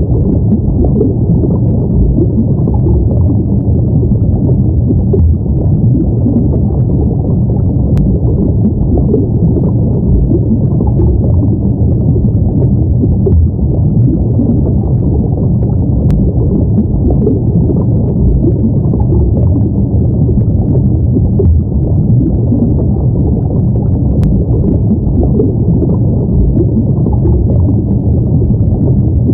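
Steady, low, muffled water rumble of an underwater ambience, even and unbroken throughout, with no music or voice.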